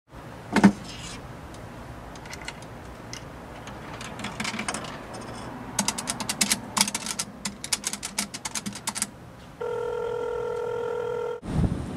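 A phone call being placed: a sharp click, then a run of clicking button presses on a telephone keypad, then a steady ringing tone on the line for about two seconds. A loud burst of noise cuts in just before the end.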